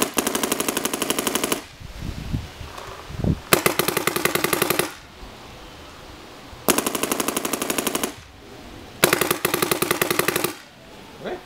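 Planet Eclipse Ego 11 and Geo 2 electronic paintball markers firing in turn, four rapid strings of shots each lasting about a second and a half, with short pauses between.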